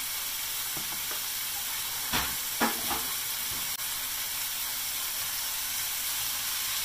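Diced tomatoes, onions and peppers sizzling as they sauté in a frying pan: a steady hiss, with a few light knocks about two to three seconds in.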